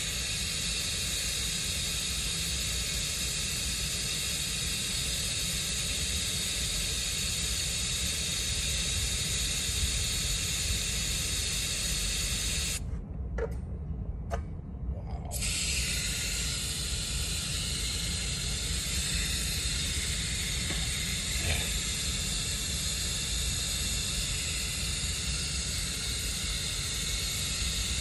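Compressed air hissing steadily into a well pressure tank as its air side is charged to 35 psi. The air stops for about two seconds midway, with a few clicks, then hisses on again.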